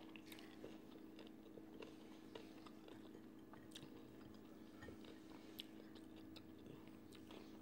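Faint close-up chewing of fried chicken eaten by hand, with scattered soft clicks and small crunches, over a steady low hum.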